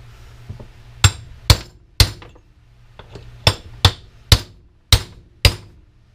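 Hammer blows driving a bearing out of a cast aluminum housing: eight sharp metallic strikes, three in quick succession about a second in, then after a short pause five more.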